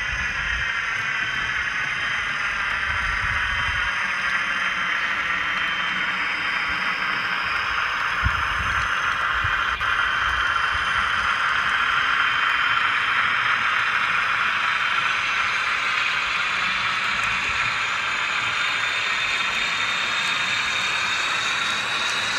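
Model railway diesel locomotive and its coaches running along the track: a steady whirring hiss from the motor and the wheels on the rails. A few low bumps come near the start and about eight seconds in.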